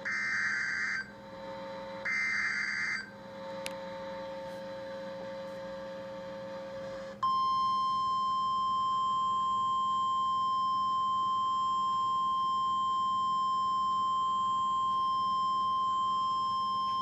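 NOAA Weather Radio alert signalling. First come two one-second bursts of SAME digital header data, a buzzing warble. After a few seconds of quiet radio hiss, the steady 1050 Hz Warning Alarm Tone comes on about seven seconds in and holds for about ten seconds before cutting off, marking the start of a new warning broadcast.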